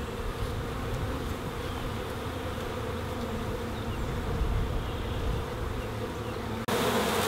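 Honey bees buzzing in a steady hum around freshly installed hives, with a low rumble underneath. Near the end the buzzing suddenly gets louder.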